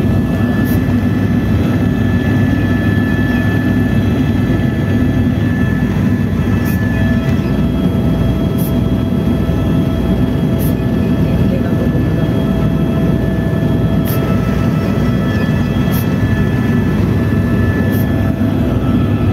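Helicopter cabin noise in flight: steady rotor and turbine drone with a constant high whine running over it.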